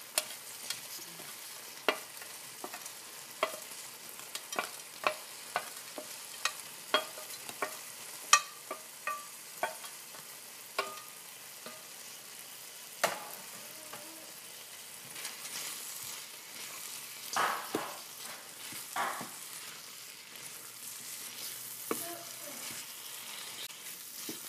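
Curry simmering and sizzling in a pan, with many sharp metal clinks over the first half as fried pieces are tipped in from a steel bowl, then a few scraping strokes of stirring in the second half.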